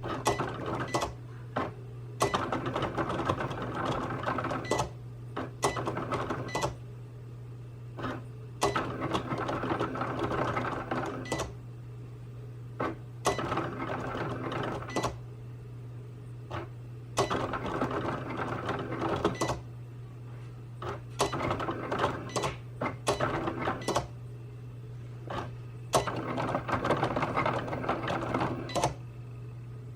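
Cricut Explore cutting machine running a cut: its motors whir in bursts of a second or two as the carriage and mat move, with sharp clicks between the moves, over a steady low hum.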